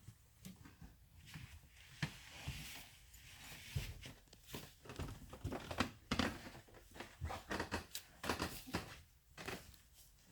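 Footsteps going down a flight of stairs: a run of irregular soft thumps and knocks, mixed with rustling of clothing and the handheld phone.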